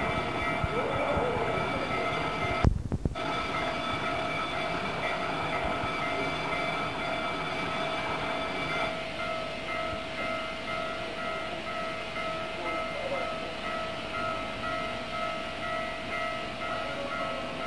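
Old field recording of the C57 144 steam locomotive's passenger train: a steady rumble with sustained whistle-like tones. A loud click and brief dropout come about three seconds in, and from about ten seconds in a slow regular beat of roughly one pulse a second comes through.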